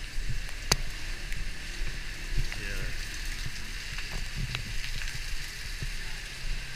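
Heavy tropical downpour: a steady hiss of pouring rain over a low rumble, with a single sharp click about a second in.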